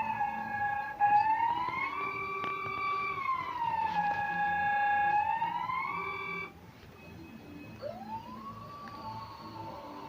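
Wailing siren of an emergency alert (EAS) alarm, its pitch sliding slowly up and down about every four seconds. It cuts off about six and a half seconds in, and a fainter siren starts a moment later, rising in pitch and then holding steady.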